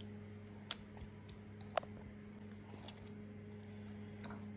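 A few sharp little taps and drips as wet, washed crayfish and fresh peppers are dropped into a mortar, over a steady low hum.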